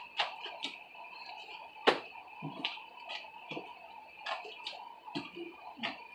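Sticky homemade slime being mixed and handled, giving irregular wet clicks and small pops, with one sharper snap about two seconds in.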